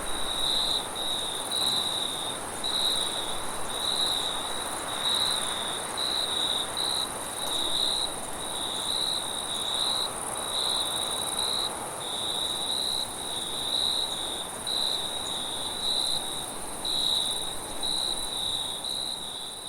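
Crickets chirping steadily, about two high-pitched chirps a second, over a continuous even higher insect trill and a soft background hiss.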